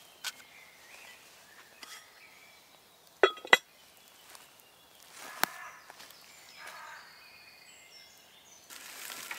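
Heavy cast-iron lid of a small Petromax Dutch oven set down onto the pot, clanking twice with a brief metallic ring about three seconds in, followed a couple of seconds later by one sharp click. Faint bird chirps near the end.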